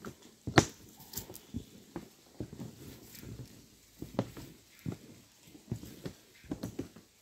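Footsteps on the deck of a suspension footbridge: irregular dull thuds about two a second.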